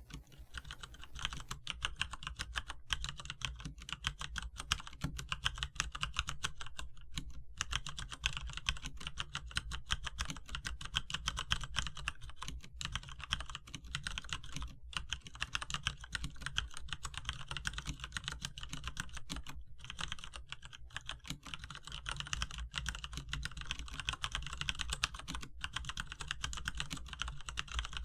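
Continuous fast typing on a Cherry MX Board 3.0 mechanical keyboard with tactile Cherry MX Brown switches and dye-sublimated PBT Cherry-profile keycaps: a rapid stream of key clicks and clacks with a few brief pauses.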